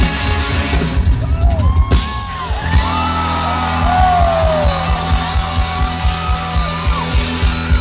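Live rock band playing loud through a festival PA: drum kit and electric guitar, with sliding held notes above the beat for most of the time. Recorded from the crowd, with some voices yelling.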